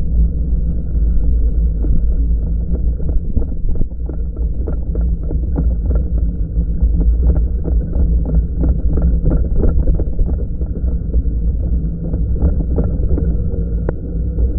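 Riding noise picked up by a body-mounted action camera on an electric bike: a steady low rumble of wind on the microphone, with a run of light clicks and rattles, about three or four a second, through the middle and one sharper click near the end.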